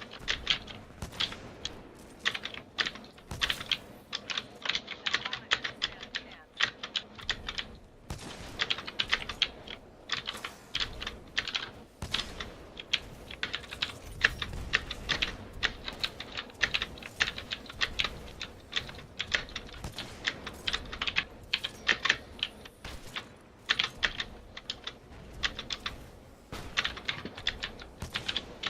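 Mechanical keyboard with clicky Gateron Blue switches being typed on fast and steadily, a dense stream of sharp clicks broken by a few short pauses.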